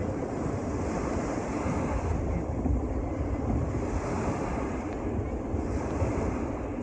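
Storm wind buffeting the microphone: a steady rushing noise heaviest in the low end.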